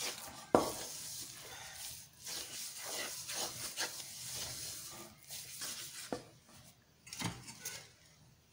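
Wooden spatula stirring and scraping a thick besan and sugar-syrup barfi mixture around a metal pot, in irregular strokes. Now and then the spatula knocks sharply against the pan, loudest about half a second in.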